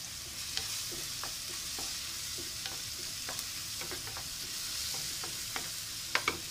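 Chopped onion, tomato and Chinese cabbage sizzling in oil in a nonstick frying pan, stirred with a wooden spatula. Scattered scrapes and taps of the spatula against the pan sound over the sizzle, with two louder knocks near the end.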